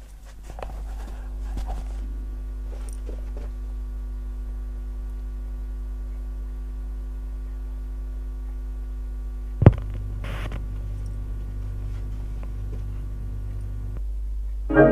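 Steady mains hum, at about 50 Hz with its overtones, from an ungrounded turntable and phono preamp played through a Technics SC-HD550 system; the hum comes from the missing ground connection. About ten seconds in there is one sharp click as the tonearm is lowered and the stylus meets the record, and the low hum grows stronger after it.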